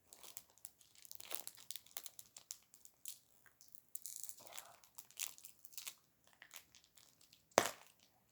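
Butter slime and its plastic packaging being handled: irregular crinkling and small crackly clicks, with one sharper click near the end.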